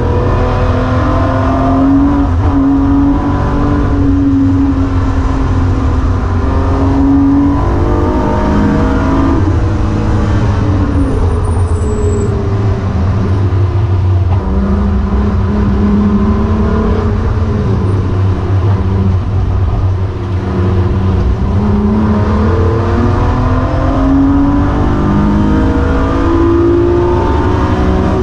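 BMW E36 M3's straight-six engine heard from inside the cabin under hard track driving, its pitch climbing through each gear and falling back at the shifts and under braking, again and again.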